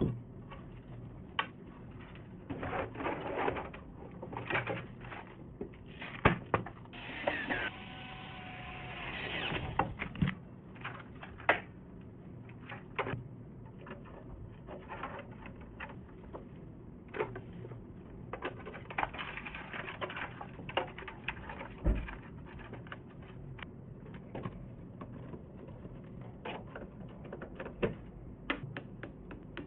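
Hands handling PC parts: scattered clicks, taps and knocks with stretches of rustling, the longest lasting about three seconds from around seven seconds in.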